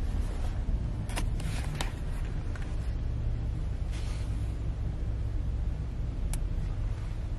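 Steady low rumble of a car's engine and road noise heard inside the cabin while the car creeps forward in slow traffic, with a few light clicks.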